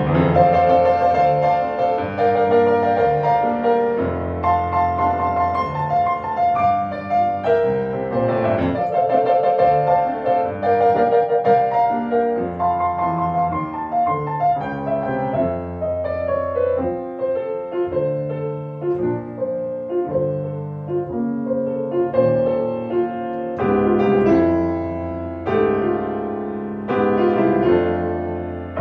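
Solo grand piano playing, chords and melody together without a break.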